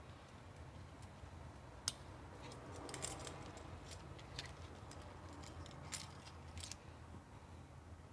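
A few faint sharp clicks and light knocks over a low steady hum: one crisp click about two seconds in, a small cluster around three seconds, and a few more scattered after.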